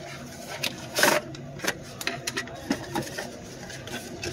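Small paperboard box being handled by hand: flaps and inner packaging scraping and rustling as the clip charger is worked out of it, with a run of irregular clicks and a louder scrape about a second in.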